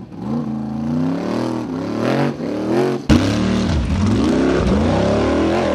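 Formula Offroad buggy's engine revving hard under load as it climbs a steep dirt slope, its pitch rising and falling over and over. The sound gets abruptly louder about three seconds in.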